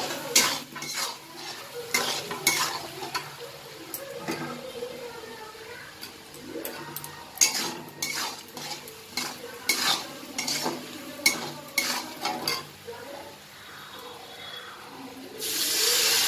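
Metal spatula stirring and scraping in a steel kadai, with many sharp clicks against the pan over the sizzle of boiled eggs frying in onion and ginger-garlic masala. Near the end a louder steady rush of water begins.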